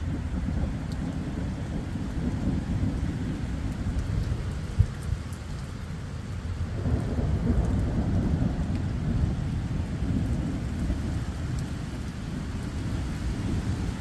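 Thunderstorm: thunder rumbling low over steady rain, swelling about seven seconds in. A single sharp knock just before the five-second mark.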